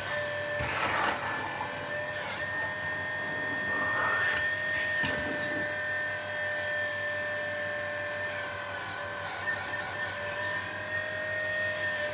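1/12-scale RC excavator's drive motor whining steadily while its boom and bucket are worked by radio, the pitch stepping slightly as the load changes, with a few short hissing surges.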